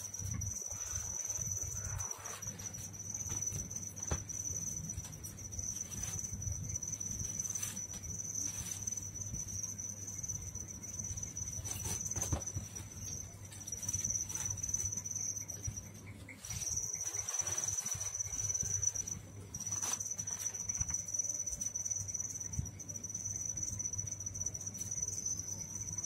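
A cricket trilling steadily at a high pitch, breaking off briefly a few times, over a low steady hum and a few faint clicks.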